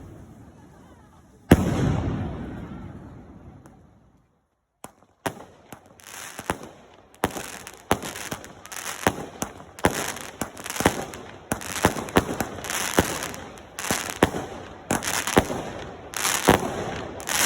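Fireworks going off. A single loud bang about a second and a half in fades out slowly, followed by a short lull. Then comes a rapid string of bangs and crackles, more than one a second, running to the end.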